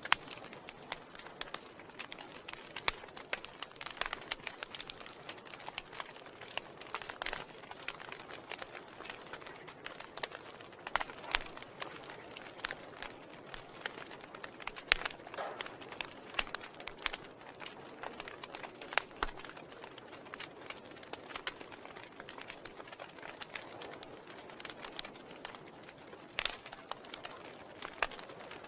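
Wood fire burning in a fireplace: logs crackling, with irregular sharp pops and snaps over a soft steady hiss.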